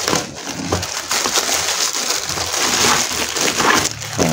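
Plastic packaging crinkling and rustling as hands pull a plastic-wrapped item out of a thin black plastic bag.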